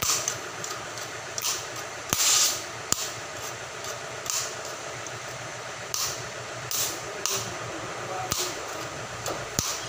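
Oxy-fuel cutting torch hissing as it cuts out a steel bushing in an excavator bucket's pin boss. Short, sharp bursts of hiss come about once a second, unevenly.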